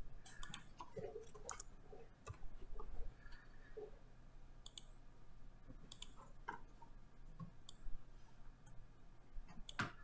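Faint, scattered clicks of a computer mouse and a few keyboard key presses, over a faint low steady hum.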